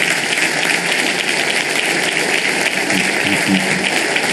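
Large audience applauding with steady, even clapping.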